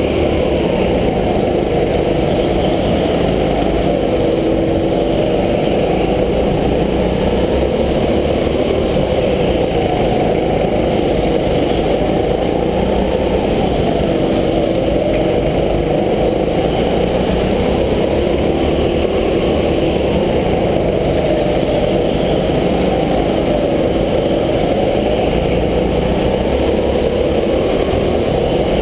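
Go-kart engine running at speed, heard from the driver's helmet, its pitch rising and falling over and over as the kart accelerates and slows through the laps.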